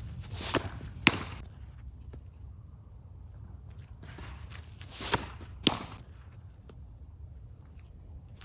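Two windmill softball pitches, each a quick rustle of the stride and a light click at release, then about half a second later a louder sharp pop as the ball hits the catcher's mitt. Faint bird chirps sound in between.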